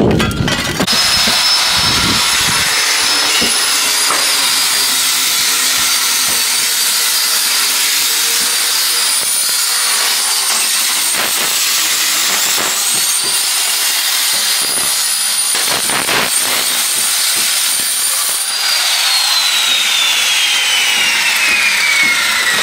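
A steady high-pitched mechanical whine over a hiss. Near the end its pitch slides slowly and evenly downward over several seconds.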